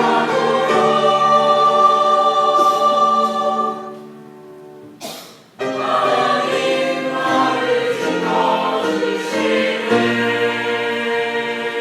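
Church choir singing a hymn in sustained chords, breaking off for a short pause about four seconds in before resuming the next phrase.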